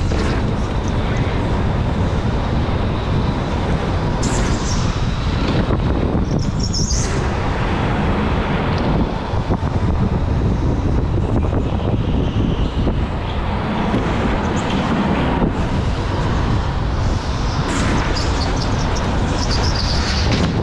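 Electric go-kart running on the track: a steady rumble with wind on the microphone, and short high squeals about four to seven seconds in and again near the end.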